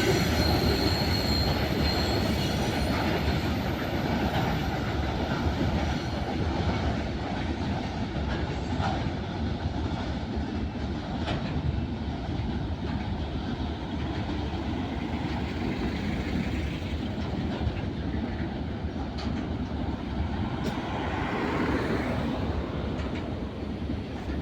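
Freight train wagons rolling past steadily, wheels clicking over rail joints, with a thin high wheel squeal in the first couple of seconds.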